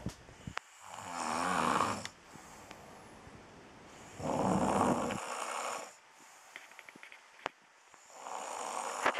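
A person snoring: three long snores, about three and a half seconds apart.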